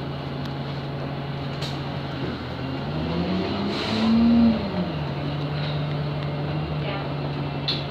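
Alexander Dennis Enviro200 MMC single-deck bus's diesel engine heard from inside the moving bus: a steady engine note that rises in pitch about three seconds in, peaks as it gets louder, then falls back to the steady note about a second and a half later.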